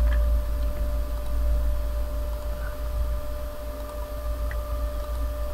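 Steady low electrical hum and hiss of the recording setup, with a faint steady tone above it and a few faint ticks.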